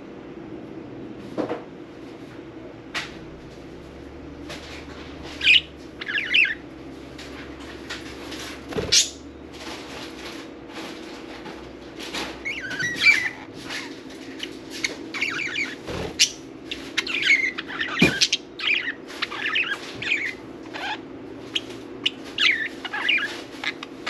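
Pet budgerigars chirping and chattering in short, scattered calls that come more often from about halfway, mixed with sharp clicks, over a steady low hum.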